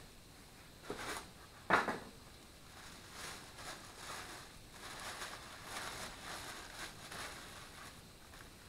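Packaging wrap being crinkled and pulled apart by hand to unwrap a new part, with one sharp loud rustle just under two seconds in, then softer, steady rustling.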